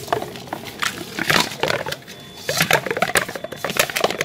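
A hand rubs a coarse, crumbly spice mix onto a grass carp fillet in an aluminium pan, making rustling and gritty scraping on the metal. An animal call with a rising and falling cry is heard over it in the second half.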